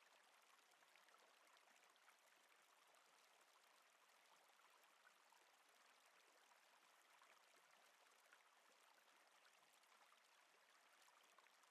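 Near silence: a faint, steady hiss of background noise, with no distinct sound event.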